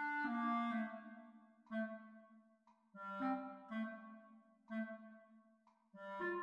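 Solo clarinet playing in its low register: a couple of held notes that fade away, then short detached notes separated by pauses, and a louder run of notes beginning near the end.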